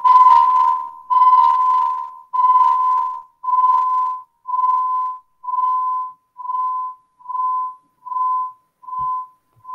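High whistling audio feedback in a video call, pulsing about once a second and getting gradually softer. It is the howl of a feedback loop between a phone and a laptop joined to the same call.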